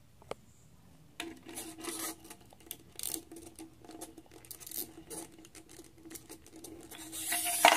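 Small clockwork wind-up walking toy being wound by hand, giving a run of irregular ratcheting clicks. Near the end it is let go and its spring motor runs with a much louder mechanical buzz.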